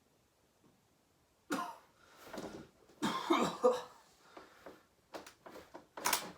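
A man coughing and clearing his throat in short, irregular bursts, starting about a second and a half in.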